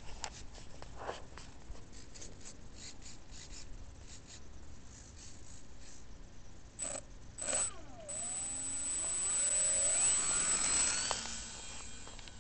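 Electric motor and propeller of a GWS Formosa foam RC plane spooling up for takeoff: a high whine that rises in pitch from about eight seconds in, is loudest around ten seconds in, then fades as the plane climbs away. A couple of short sharp knocks come just before the motor starts.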